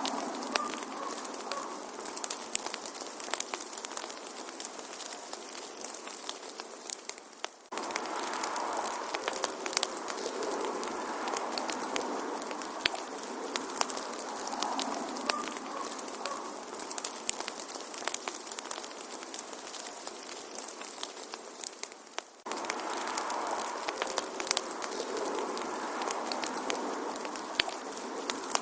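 Wood fire burning in a fireplace: a steady hiss with frequent sharp crackles and pops. The loop dips and restarts abruptly twice, about 8 seconds in and about 22 seconds in.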